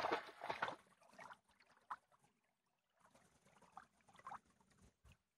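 Pharaoh Hound splashing through shallow lake water; a loud run of splashes stops under a second in, followed by a few faint scattered splashes as the dog stands and shifts in the water.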